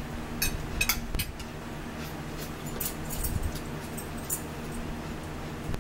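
Metal forks clinking against ceramic dinner plates while eating: about ten sharp, irregular clinks, most in the first four and a half seconds, over a steady low hum.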